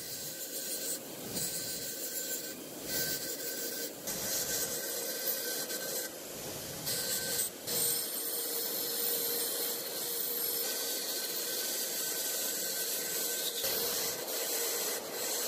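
Bench grinder running, its spinning wheel scraping rust off the metal parts of an old hand crank drill pressed against it: the crank spindle, the drive gear, then the frame. The scraping rises and dips as each part is pressed on and moved.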